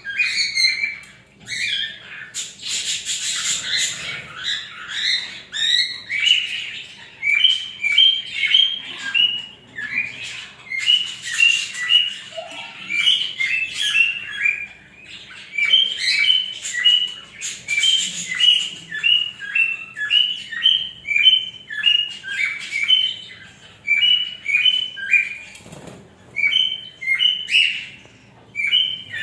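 Lovebirds chirping in a fast, continuous chatter of short, high-pitched calls, with bursts of wing flapping.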